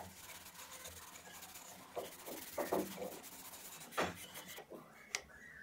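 Sandpaper rubbed by hand over a plywood board, a faint scratchy rubbing with a few short, louder strokes about two seconds in and again near four seconds.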